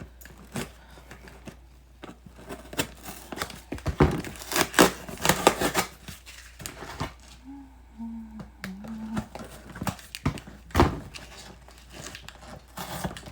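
A cardboard box and its packaging being opened by hand: crinkling and tearing of wrapping, with irregular knocks and thumps, the loudest about four seconds in and again near the end.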